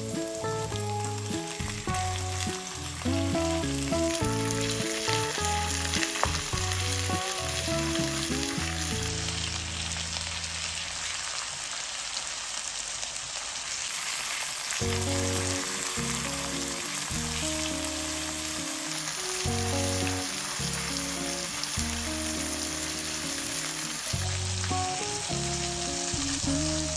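Food sizzling as it fries in a pan, with a steady hiss throughout, over instrumental background music.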